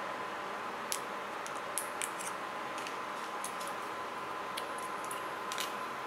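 Light plastic clicks and taps as a SIM card and its plastic nano-SIM adapter are handled between the fingers, a dozen or so short ticks scattered unevenly over a steady background hiss.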